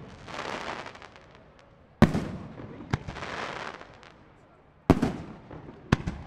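Professional aerial firework shells bursting: two loud bangs about three seconds apart, each followed by a second or so of fizzing crackle as the stars burn. A smaller pop comes between them and a sharp bang comes near the end.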